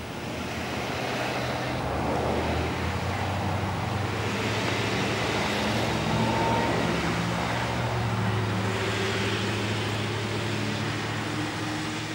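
Diesel locomotive approaching slowly: a steady low engine drone with the noise of wheels on rail, growing louder over the first couple of seconds and then holding.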